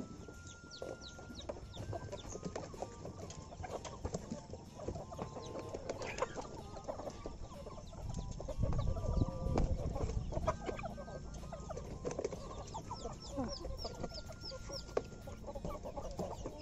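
Kampung chickens clucking, several hens and roosters calling at once, with high short chirps mixed in. A louder stretch of low rustling noise comes about eight to ten seconds in.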